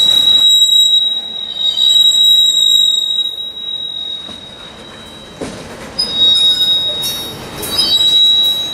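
Freight train wheels squealing loudly against the rails, a high, steady screech that fades after about three seconds and comes back from about six seconds in.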